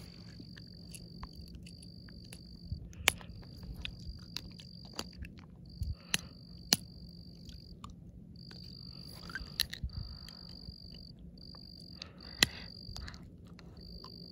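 An insect trills a high, steady note in repeated phrases of a second or two, with short gaps between them. A low steady hum runs underneath, and a few sharp clicks stand out above it.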